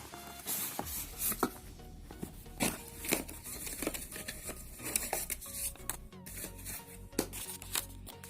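Product packaging being opened by hand: scattered tearing, crinkling and sharp clicks of handling, over quiet background music.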